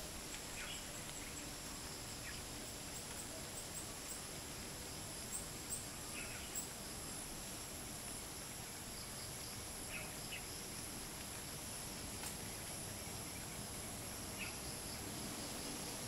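Steady high-pitched insect chorus of crickets and cicadas over a faint low hiss of light wind, with brief bird chirps now and then, a few close together about five to six seconds in.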